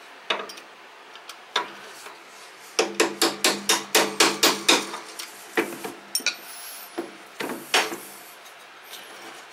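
Hammer blows on a steel punch, driving out a roll pin in a John Deere 826 snow thrower's wheel drive: a couple of single strikes, then a quick run of about ten at roughly five a second, then a few more spaced out.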